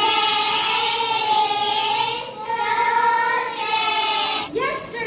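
A class of young children singing together in unison, in two long held phrases with a short break between them.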